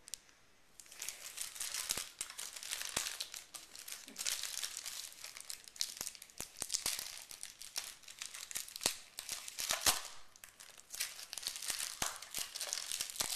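A 1990 Score football card pack's shiny wrapper being torn open and crinkled by hand, a dense crackling with many sharp little snaps, starting about a second in.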